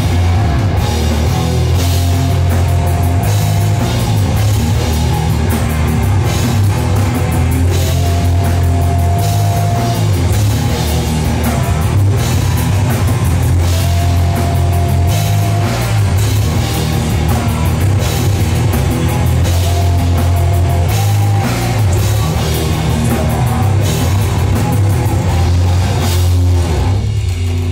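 Live rock band playing loud and heavy: electric guitars and bass over a drum kit, with a high guitar note held for about two seconds that comes back roughly every six seconds.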